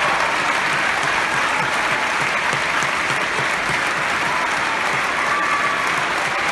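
Large theatre audience applauding steadily: dense, even clapping from many hands.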